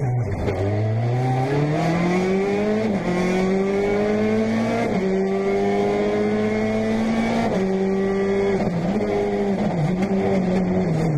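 Peugeot 208 T16 R5 rally car's 1.6-litre turbocharged four-cylinder engine heard from inside the cockpit, pulling hard with rising revs and quick upshifts about three and five seconds in. It then holds steady and lets the revs fall away near the end as the car slows.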